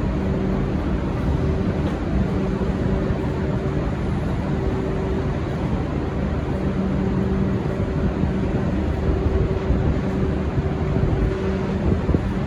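Diesel passenger train running steadily: a broad rumble with a low engine hum that comes and goes.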